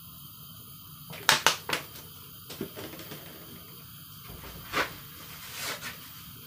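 Kitchen handling sounds over a faint steady hiss: a quick run of three sharp clicks a little over a second in, a few lighter taps, then two more knocks near the end, as the oil bottle is put away from the wok on the gas stove.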